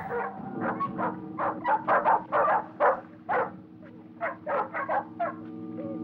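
Dogs barking and yipping in short, irregular volleys, over a steady held low chord of film music that swells louder near the end.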